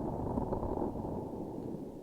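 Close-up sticky, crackly squishing of a transparent sticky object with a grainy filling, sounding muffled with no treble.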